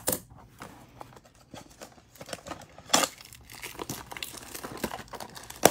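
Cellophane shrink wrap crinkling and tearing as it is stripped off a Topps Chrome blaster box, in a run of short crackles with a couple of sharper rips.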